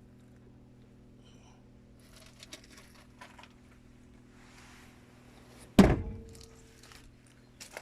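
A single loud thunk about six seconds in, with a brief ringing tail, over a steady low hum and a few light clicks.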